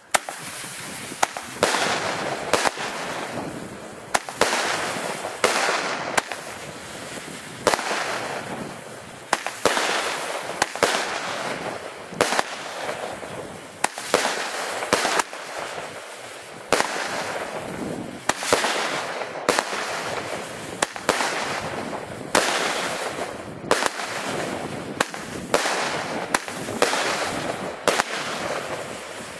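Weco Big Crackles firework battery firing shot after shot: a sharp launch bang about once a second, each followed by a dense fizzing crackle from the crackling stars.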